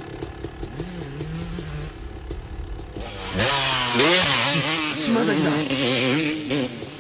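Motocross bike engines: a lower, steadier engine note, then about three seconds in a dirt bike comes up loud, revving hard with its pitch rising and wavering.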